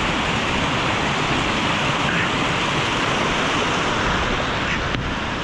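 Fast mountain stream rushing over rocks, a loud, steady sound of white water.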